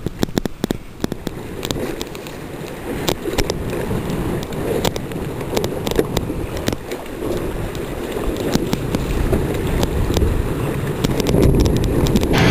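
Wind buffeting the microphone of a camera on a windsurf board, with water rushing and splashing and frequent sharp clicks and knocks; it grows louder over the last few seconds.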